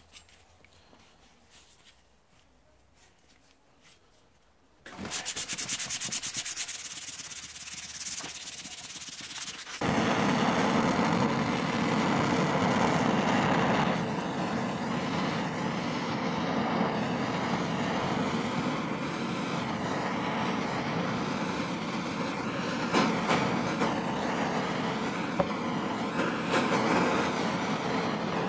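Near silence at first, then about five seconds of a rapid rasping sound. From about ten seconds in, a handheld gas torch's flame rushes steadily as it is played over the machete's wooden handle.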